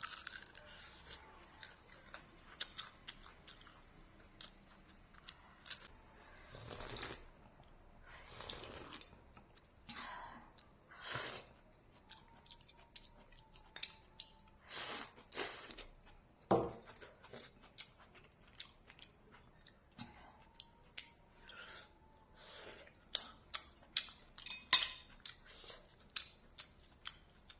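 A person eating close to the microphone: chewing, with many short sharp clicks scattered throughout and a few longer noisy bursts.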